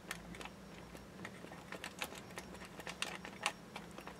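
Faint, irregular small clicks and taps of fingers handling a plastic model kit and pressing a thin stencil sheet onto it, over a low steady hum.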